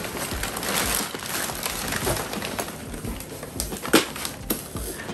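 Crumpled brown kraft packing paper rustling and crinkling as a boxed item is pulled out of a cardboard shipping carton, with a few sharp crackles in the second half, the loudest about four seconds in.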